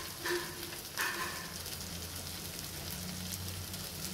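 Thick mutton liver masala gravy simmering in a pan, bubbling and sizzling steadily. Two short ringing tones sound in the first second and a half.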